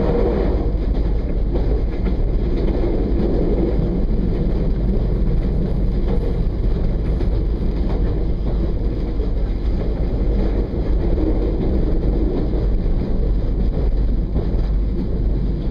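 Regional passenger train running along the track, heard from on board: a steady rumble with wind buffeting the microphone.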